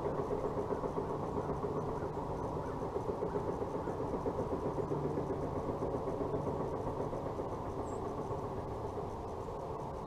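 A machine runs steadily, giving a low hum with a fast, even pulse.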